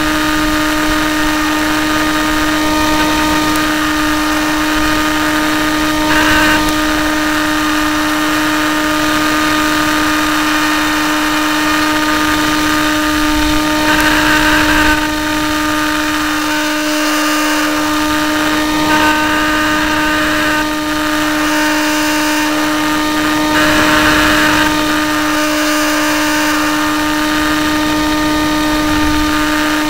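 A small electric RC plane in flight, heard from its onboard camera: a steady unchanging whine with rushing air over it, and short brighter surges of noise every several seconds as it banks.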